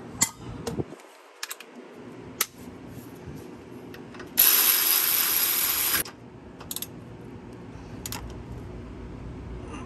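A ratchet wrench driving the lower strut mount bolt home on a newly fitted rear strut: one loud, even burst of ratcheting about a second and a half long near the middle, with a few separate sharp metal clicks of the socket and tools before and after.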